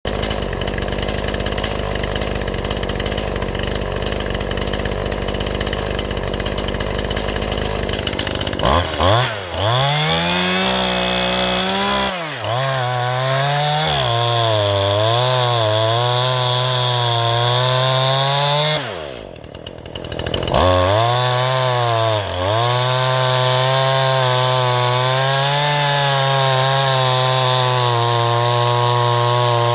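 Stihl MS181 two-stroke chainsaw running and cutting wood, its engine pitch rising and falling as it revs and takes the load. The sound drops away briefly about two-thirds of the way through, then picks up and runs steadier. Before the saw comes in there are about eight seconds of steady rushing noise.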